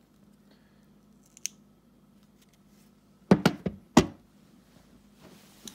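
Opened Kobalt battery pack handled and set down on a wooden tabletop: a faint click, then a quick cluster of sharp hard-plastic knocks a little over three seconds in, the last and loudest at about four seconds.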